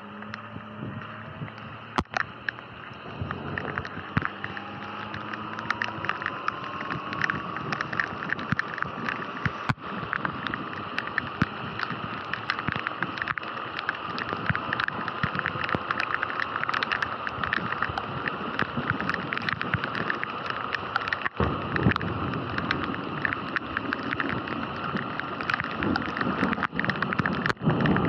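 Sur-Ron electric dirt bike's motor whining, rising in pitch as the bike speeds up over the first several seconds and then holding steady. Under it are the hiss of tyres on a wet road and the spatter of raindrops hitting the camera, with wind buffeting near the end.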